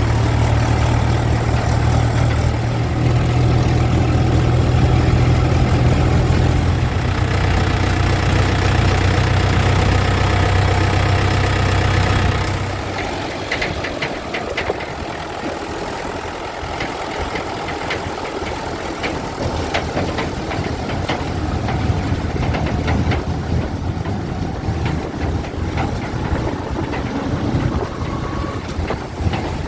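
Heavy diesel engines at work. A loud, steady low engine drone runs for about twelve seconds, then drops off suddenly, leaving a lighter engine sound with scattered clicks and knocks.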